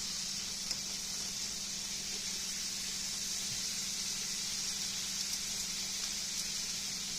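Chicken legs deep-frying in hot oil: a steady, even sizzle.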